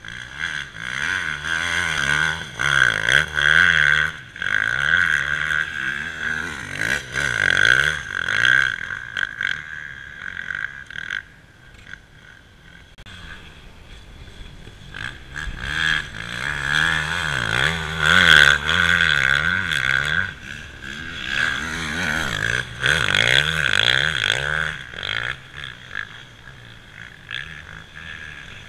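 Motocross bike engine revving hard as it rides across sand, its pitch climbing and dropping again and again with throttle and gear changes, over a steady high whine. It is loudest for long stretches early and again in the second half, and drops away for a few seconds in between and near the end.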